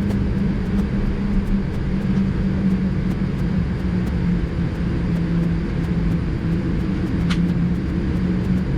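Boeing 787-10 cabin noise while taxiing: a steady low rumble of the idling engines with a hum that wavers slightly in pitch. A single short click about seven seconds in.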